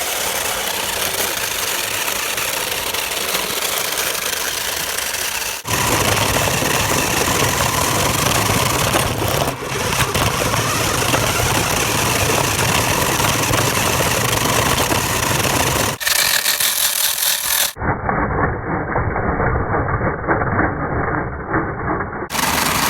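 A vehicle's engine running steadily, broken by several abrupt cuts. Near the end it sounds muffled for a few seconds.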